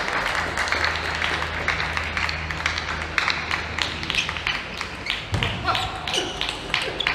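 Arena crowd noise between table tennis points: applause and cheering early on fade into crowd voices and shouts, with scattered sharp taps of a ping-pong ball.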